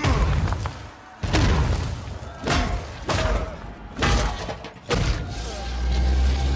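Film sound effects of heavy body slams onto a stone floor: about five loud thuds roughly a second apart, each with a cracking, shattering edge, over orchestral score. A deep low rumble swells near the end.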